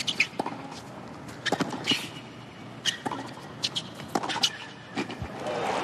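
Tennis rally on a hard court: racket strikes on the ball every second or so, with the ball bouncing and shoes squeaking between shots. A crowd starts applauding right at the end.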